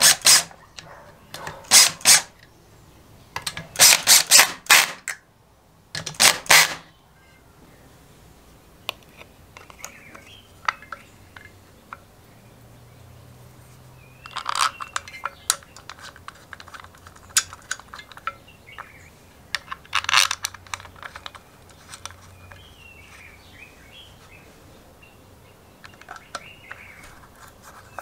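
Small metal clicks and light scraping of a screwdriver working the screws of a two-stroke magneto's contact-breaker points and ignition coil. Several short, loud noisy bursts come in the first seven seconds, with two weaker ones later.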